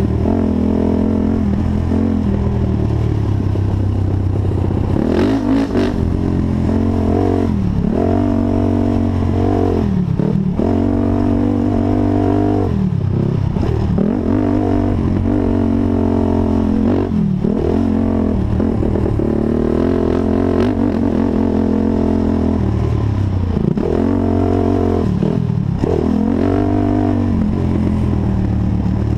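Honda TRX450 quad's single-cylinder four-stroke engine running hard under throttle, its pitch climbing and then dropping sharply again and again as the rider accelerates and lets off, with rattling from the machine.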